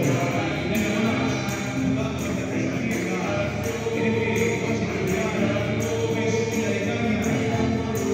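Live folk music: several voices singing together in chorus, with guitar, over a steady percussive beat of about two strokes a second.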